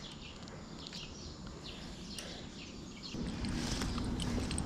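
Quiet outdoor ambience with faint, scattered bird chirps; about three seconds in a low rumble comes up underneath.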